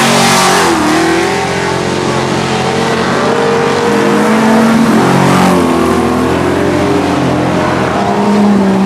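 A pack of winged speedway sedans racing on a dirt oval, several loud engines overlapping. Their notes rise and fall as the cars go through the turns, with a dip and climb in pitch about half a second in.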